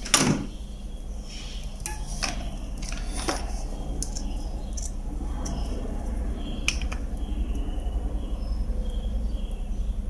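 Hands handling a small circuit board and a helping-hands alligator clip: one sharp knock at the start, then scattered small clicks and taps over a steady low hum.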